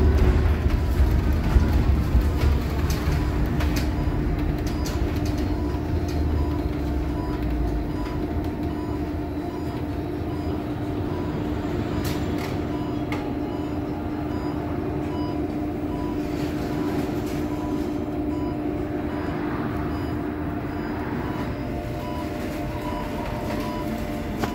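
Interior of a battery-electric Scania/Higer Fencer F1 city bus slowing down, its low road and tyre rumble fading over the first several seconds, with a steady electric drive hum that dies away near the end as it comes to a stop. A faint beep repeats about twice a second throughout.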